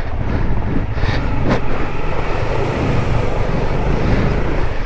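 Motorcycle ridden through a water crossing: the engine runs steadily while water splashes around the wheels, with wind on the microphone.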